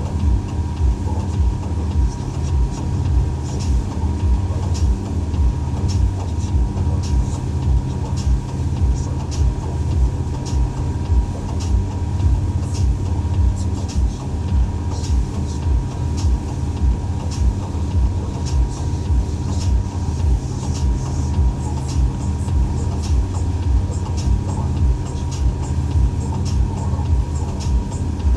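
Boat's outboard motor running steadily under way, with a fast, regular thumping throughout and scattered sharp slaps, typical of the hull running over chop.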